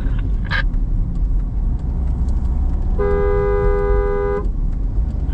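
Car horn sounding one steady two-tone blast about a second and a half long, starting about three seconds in, over the steady low rumble of a car driving on a highway, heard from inside the cabin.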